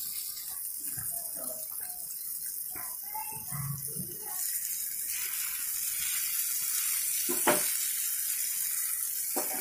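Semolina-coated Bombay duck fish shallow-frying on a hot tawa: a steady oil sizzle that grows louder about halfway through. A sharp clack of the metal spatula against the tawa about three-quarters of the way in, and a lighter one near the end.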